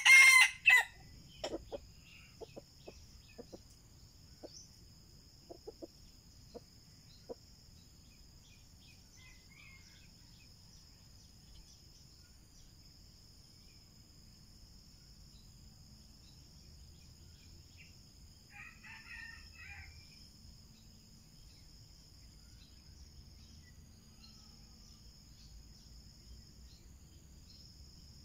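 Red junglefowl rooster crowing once, loud and short, right at the start, followed by a few short clucks over the next several seconds. A fainter call comes about 19 seconds in, over a steady high insect drone.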